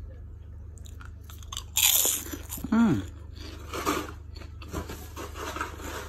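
Puffed microwave pork crackling being bitten and chewed: a loud crisp crunch about two seconds in, then a few smaller crunches as it is chewed.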